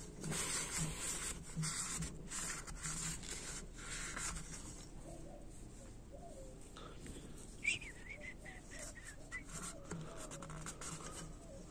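Soft scraping and rubbing of a thin metal rod worked inside an A604/41TE automatic transmission case to clear out dirt, busiest in the first few seconds, with a single sharp click about two-thirds of the way through.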